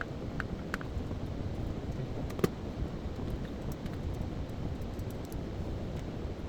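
A few light clicks from handling the plastic parts and screws of a blender base during reassembly, with one sharper click about two and a half seconds in. A steady low rumble runs underneath.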